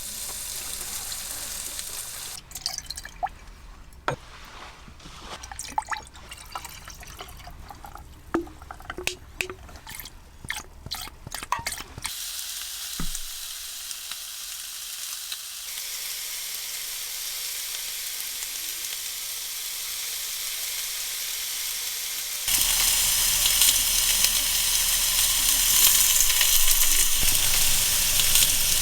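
Cooking sounds: a hot pan sizzling, with utensils clicking and tapping against it through the first part. The sizzle turns quieter, then jumps louder about two-thirds of the way in.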